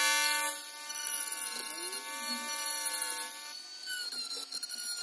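Small handheld rotary tool's motor starting up and running with a steady whine. Its pitch wavers slightly partway through and shifts again after about three and a half seconds as it works the plastic of the laptop hinge mount.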